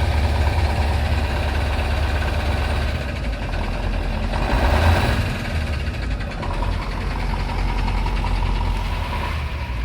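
KAMAZ truck diesel engine idling with its air compressor charging the brake system. About four and a half seconds in comes a short burst of hiss: the air pressure regulator blowing off as the system reaches about eight bar.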